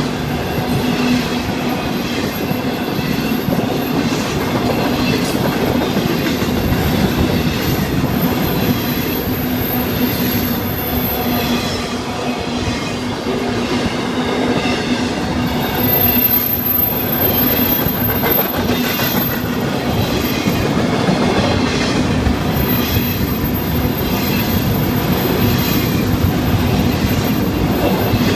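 Florida East Coast Railway freight train's autorack and intermodal cars rolling past close by: a steady rumble and clatter of steel wheels on the rails.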